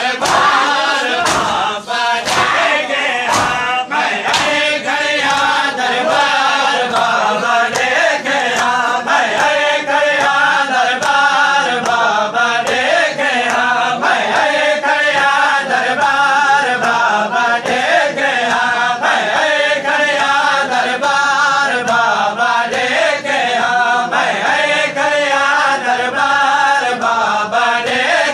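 A crowd of men chants a noha, a Shia lament, in unison. A steady rhythmic beat of hands slapping chests (matam) keeps time with the chant.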